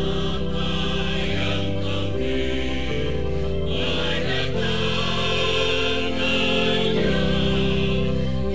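Mixed church choir of men and women singing in parts. The chords are held long, changing every second or so.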